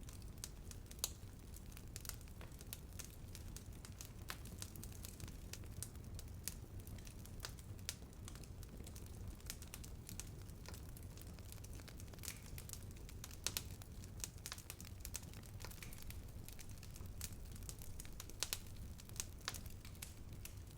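Wood bonfire burning, crackling with frequent irregular sharp pops over a low steady rumble, a few pops louder than the rest.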